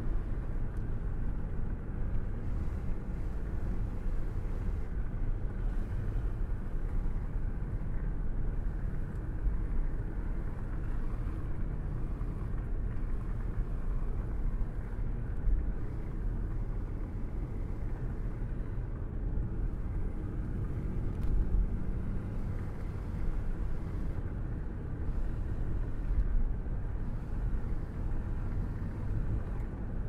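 Small motor-driven log splitter running, a steady low drone, with its wedge splitting logs fed against it by hand.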